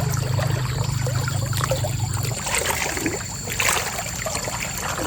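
Stream water trickling and splashing, with scattered small splashes. A low steady rumble stops about two seconds in.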